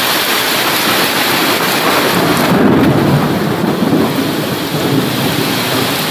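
Loud, steady rush of a torrent of floodwater pouring down a slope into a flooded street, mixed with heavy rain, with a deeper rumble building from about two seconds in.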